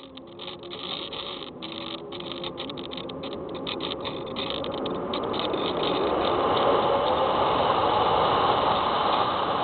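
Onboard recording from a Hubsan Spy Hawk RC plane: the electric motor and propeller hum faintly at first, then rushing airflow grows steadily louder from about two seconds in as the plane noses down. The rush stays at its loudest near the end, with brief crackly dropouts throughout.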